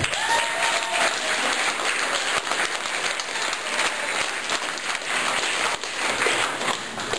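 Audience applauding steadily, with a short voice calling out at the start.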